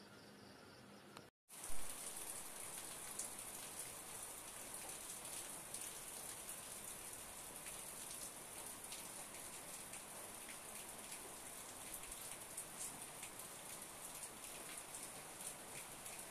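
Rain: a steady hiss with fine, dense patter that starts abruptly about a second and a half in, after a brief cut to silence.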